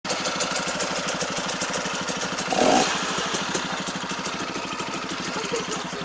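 Off-road motorcycle engine running at low revs with a steady, quick putter, and a brief louder burst about two and a half seconds in.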